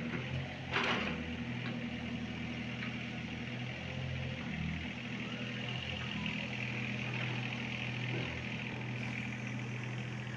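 Diesel engine of a LiuGong CLG30 mini excavator running steadily at low speed, with one sharp click about a second in.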